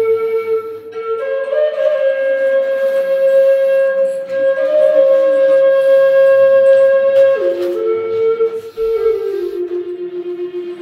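A flute playing a slow Navajo ceremonial melody. It opens on one note, rises about a second in to a higher note held for about six seconds, then steps down through lower notes near the end.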